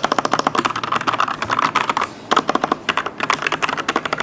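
Typing on a Fantech Atom Pro 79 mechanical keyboard with red (linear) switches: a fast run of clacking keystrokes, with a brief break about two seconds in.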